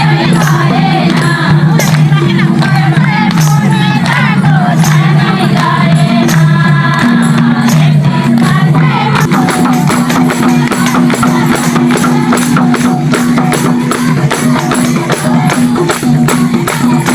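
Festival folk music with a singing voice over steady low held notes; about halfway through, the singing drops back and a quick, even beat of jingling percussion strikes takes over, about four to five a second.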